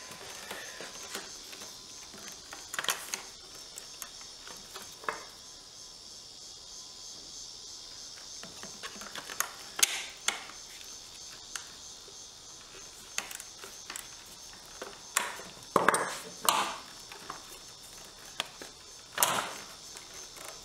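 Scattered clicks, taps and metal clinks of hand tools: a deep socket and wrench working small nuts on the induction forge's transformer brackets. The loudest knocks come about halfway through and near the end. Under them runs a steady high-pitched insect drone.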